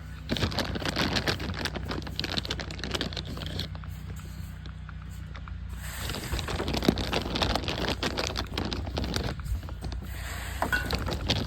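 Foxes crunching and chewing dry snacks: dense runs of small crackles that pause twice, over a low steady hum.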